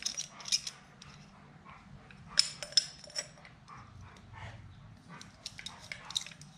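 Light metallic clicks and taps of a throttle cable and billet twist-throttle housing being handled and fitted, with two sharper clicks about two and a half seconds in.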